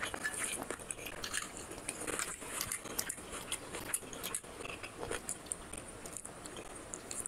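Fingers mixing rice with chicken curry gravy on a glass plate: a run of irregular soft, wet, sticky clicks and squishes. About four seconds in, the curry is tipped from a small glass bowl onto the plate.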